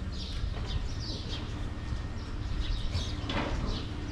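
Small birds chirping repeatedly in quick, high, falling notes, over a steady low rumble.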